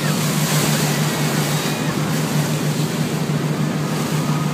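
Motorboat engine running steadily with a constant low hum, under a wash of wind and water noise.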